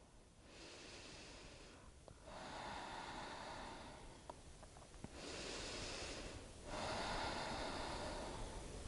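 A woman taking slow, deep breaths in and out through her nose, catching her breath after vigorous exercise; about four soft rushes of air, each lasting a couple of seconds.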